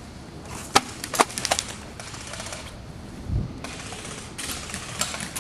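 Airsoft gunfire: a few sharp clicking snaps about a second in, then a quicker run of clicks near the end. A single low thump comes in between.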